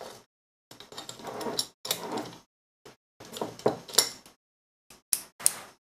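Rummaging for a tool to point with: small objects rustled and knocked about in several irregular bursts, ending in two sharp clicks near the end.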